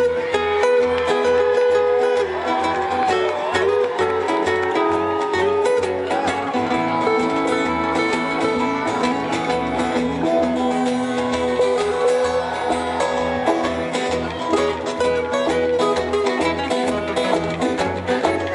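Live acoustic string band playing an instrumental passage of a folk song: plucked strings over a steady low bass pulse, with a gliding melody line on top.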